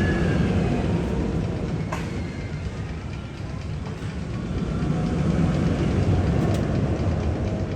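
Rumble of a train rolling on rails, with faint high squeals and a few sharp clicks. It swells near the start and again about two-thirds of the way through.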